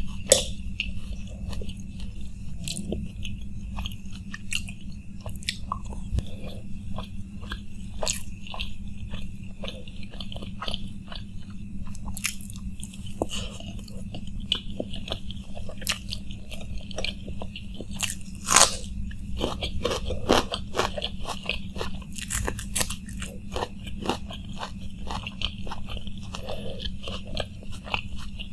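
Close-up chewing and crunching of crisp fuchka (panipuri) shells with their filling: many sharp, irregular crackles and wet chewing, with one loud crunch about two-thirds of the way through.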